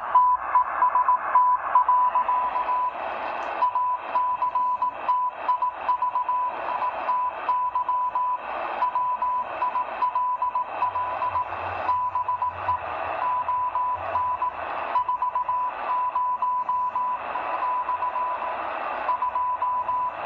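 Morse code from a shortwave receiver: a steady tone of about 1 kHz keyed on and off in dots and dashes at about 18 words per minute, over band noise with crackles of static. It is the computer-sent W1AW code transmission on the 80-meter band, played through the Degen DE1103's speaker, very stable in tone and timing.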